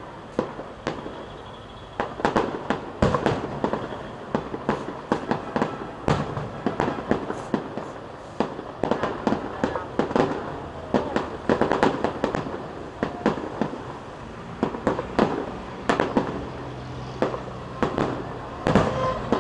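Aerial fireworks shells bursting: a rapid, irregular series of bangs, thicker from about two seconds in, with a short lull about two-thirds of the way through.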